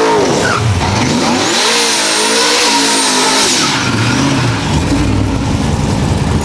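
Race car engine revving up and down. From about a second and a half in, a loud high hiss with a thin squeal rides over it for about two seconds, then the engine settles into a deep rumble.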